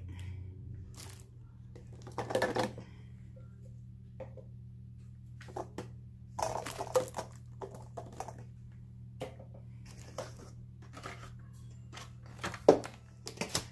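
Plastic breast pump parts being taken out of a dish drainer and handled: scattered light clacks and knocks, a few louder, over a steady low hum.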